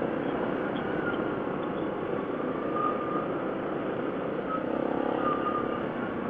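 Yamaha 700 ATV's single-cylinder engine running steadily at trail-riding speed, with tyre noise on the dirt and wind on the handlebar-mounted microphone.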